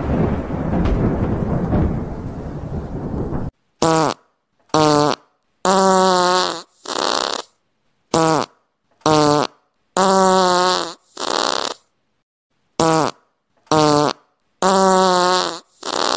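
A loud, dense rumbling noise for the first three and a half seconds. Then a comic sound effect added in editing, looped three times with dead silence between the sounds: each round is two short blips, a longer pitched, wavering blast and a breathy one.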